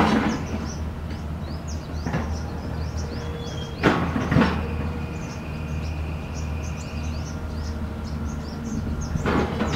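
XCMG excavator's diesel engine running steadily as it works, with short loud noisy bursts about 2 s in, twice around 4 s, and again near the end.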